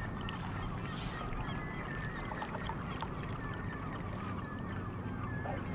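Steady wash of lake water around a sea kayak being paddled, with faint, high, wavering bird calls repeated several times.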